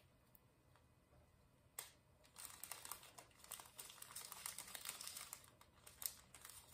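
Faint crinkling of a small plastic bag of diamond-painting drills being handled, with a single click about two seconds in before the rustling continues.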